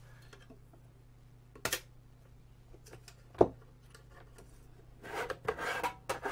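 A light click, then a sharp snap about three and a half seconds in as a thin seal wire on an aluminium instrument case is cut and pulled free with side cutters. Near the end comes about a second of metal scraping as the aluminium lid slides off the case.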